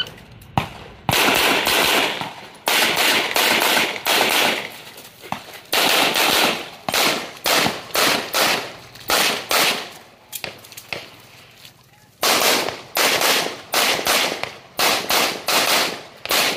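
Rapid pistol fire from a practical-shooting stage run: quick strings of shots, pairs and bursts, each with a short echoing tail. Brief pauses fall between strings, and there is one longer lull a little past the middle.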